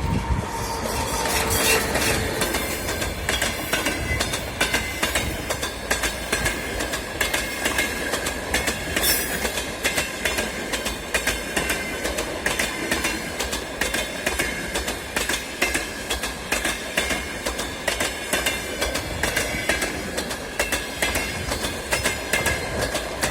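Passenger train running, its wheels clattering over the rail joints in a steady, rhythmic clickety-clack, with a faint steady high whine underneath.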